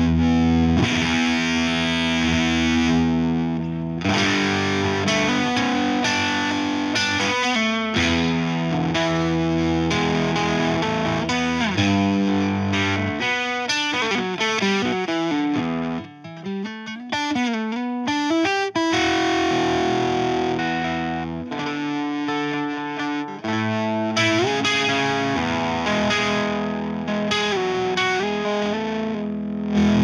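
Electric guitar played through a Veri-Tone Beehive effects pedal with the effect switched on. Sustained notes and chords carry rich overtones, and about halfway through the notes glide down and back up in pitch.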